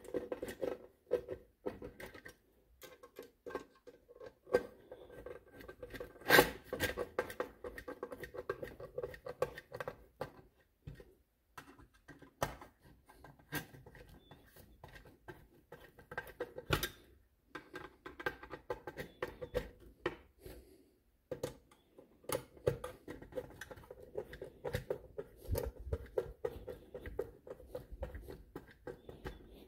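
Screwdriver turning the ignition coil's screws down into a plastic GM HEI distributor cap: a run of small scattered clicks and scratches of the tool and screws, with two louder knocks.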